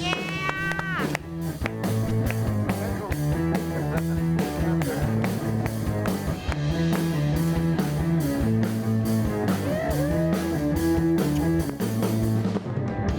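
Rock music: an electric guitar and bass line over a steady drum beat.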